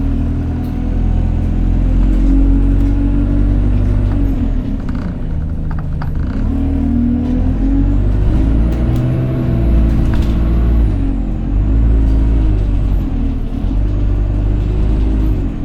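Single-decker bus engine heard from inside the bus under way, its note climbing and dropping several times as it accelerates and shifts gear, with a faint high whine rising and falling above it: the loud 'hoover' whine of this bus.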